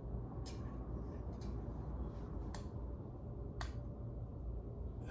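A few separate sharp clicks and taps of metal parts being handled during a brake pad change, over a steady low rumble.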